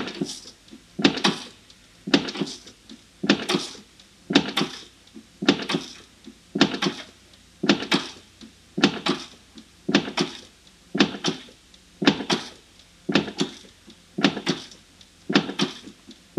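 Nissan Almera's clutch pedal being pumped over and over, a short knock about once a second, pushing fluid through the clutch hydraulics to bleed air bubbles out of the line.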